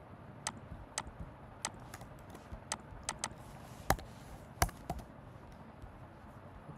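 Scattered clicks of typing on a computer keyboard: about a dozen short, sharp key taps at an uneven pace, the loudest near the middle.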